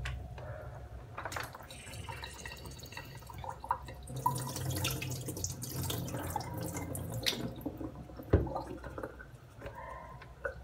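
Water splashing and dripping in a kitchen sink as a large plastic bowl is rinsed and tipped, with small knocks of the bowl against the sink and one sharper knock about eight seconds in.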